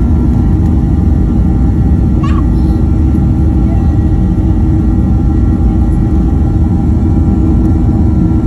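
Boeing 737-800's CFM56-7B turbofan engines running at taxi power, heard from inside the cabin at a window seat over the wing: a loud, steady low rumble with a faint hum.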